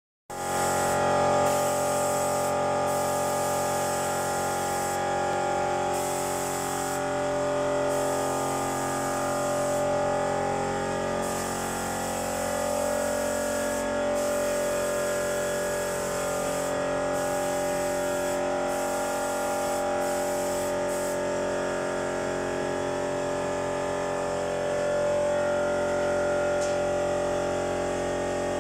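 Steady machinery hum holding several fixed pitches, with a high hiss that cuts in and out every second or few seconds.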